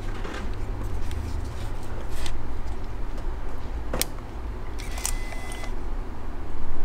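Handling noise of a Sony ZV-1 compact camera over a constant low hum. There is a sharp click about four seconds in, then a short whirring hiss with a steady high tone about a second later, as the flip screen is swung open and the camera switches on.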